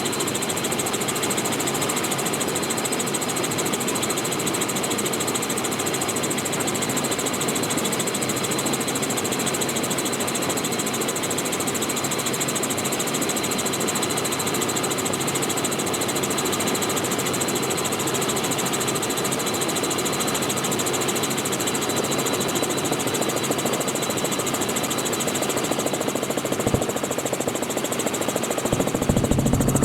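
Robinson R44 helicopter in flight, heard in the doors-off cabin: a steady drone of engine and rotor with a thin whine running through it. Near the end a louder rush of wind noise sets in.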